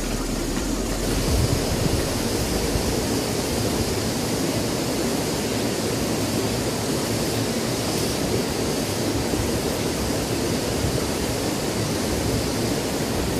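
Steady rush of water from a small cascade spilling into a rocky river pool.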